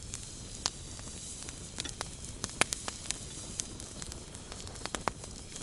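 Wood campfire crackling: irregular sharp pops and snaps over a steady low hiss.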